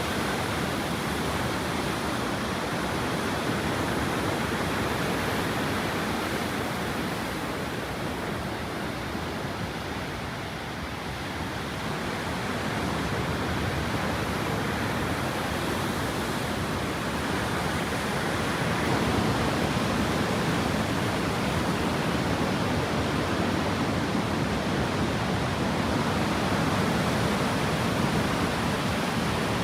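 Waterfall rushing: a steady, even wash of falling water that eases slightly about ten seconds in and swells a little again from about nineteen seconds on.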